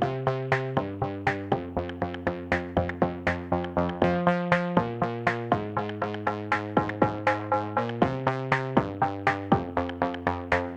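Background music: electronic track with a steady beat of about four hits a second over synthesizer chords.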